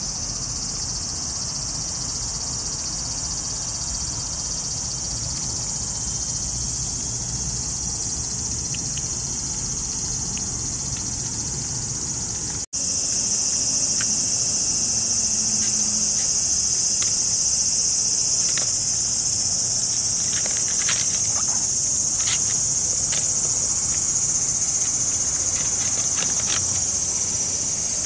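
Steady, high-pitched chorus of insects, with a momentary dropout about halfway through, after which it is slightly louder. In the second half come scattered faint clicks from a cat eating out of a foam tray.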